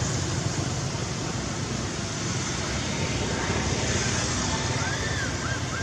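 Steady outdoor rumble and hiss of road traffic. Near the end, about four short calls that rise and fall in pitch.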